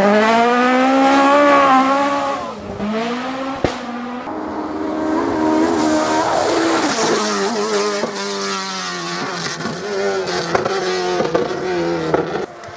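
Rally car engines revving hard, the pitch climbing and dropping with gear changes and lifts, in several short segments cut together. There is a sharp click about four seconds in.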